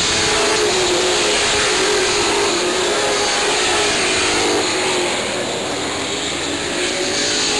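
A pack of Sportsman stock cars racing on a short track, many engines running together as one loud, steady roar with a wavering engine pitch.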